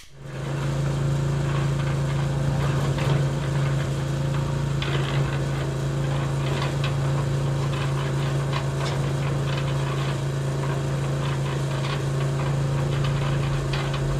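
A small motor running steadily with an even hum, a few faint ticks over it; it starts and cuts off abruptly.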